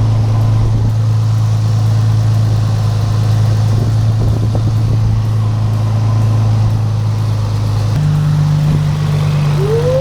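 Nissan 350Z's V6 engine running with a steady hum that steps up suddenly in pitch about eight seconds in.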